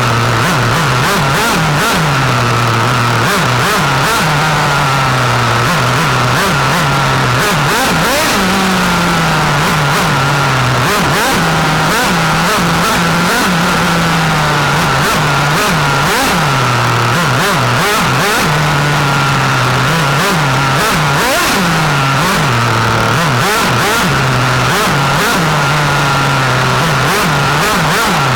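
1/8-scale nitro RC racing car's small glow engine, heard from a camera mounted on the car. It revs up and down over and over, its pitch falling for a few seconds and then jumping back up, as the car accelerates and lifts off.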